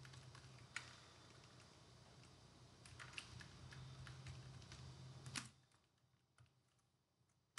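Faint computer keyboard keystrokes, a scattering of soft clicks with a few sharper ones, stopping about five and a half seconds in.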